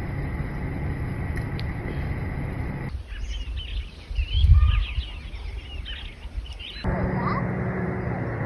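Songbirds chirping and singing for about four seconds in the middle, with one low gust of wind on the microphone partway through. Before and after, a steady low rumble with a faint hum.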